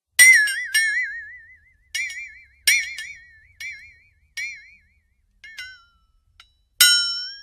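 Cartoon sound effect: a run of about ten bright struck tones at uneven intervals, each ringing with a wobbling pitch and dying away within a second. The first and last strikes are the loudest.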